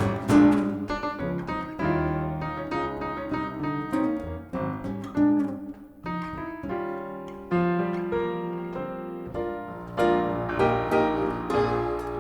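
Live jazz with piano playing chords and runs over acoustic guitar; the plucked guitar notes grow busier near the end.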